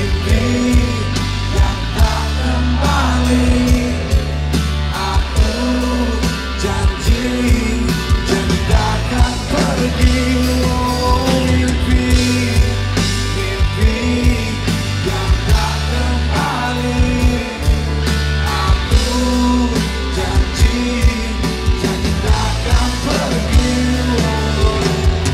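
Live rock band playing loud through a festival PA, heard from within the crowd: a steady drum beat, bass and electric guitars.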